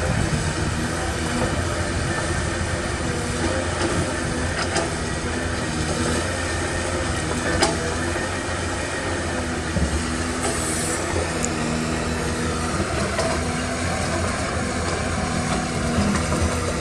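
Caterpillar 320D excavator's diesel engine running steadily while the machine works its boom and bucket, with a couple of sharp knocks.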